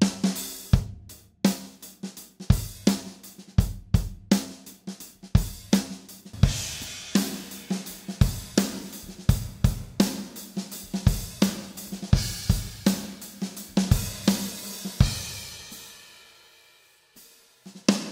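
Recorded acoustic drum kit playing a groove of kick, snare, hi-hat and tom hits, heard first dry with the reverb bypassed and then with an ambient algorithmic reverb (Softube TSAR-1) added. About 15 s in the kit stops and the reverb tail dies away over a couple of seconds before the drums start again.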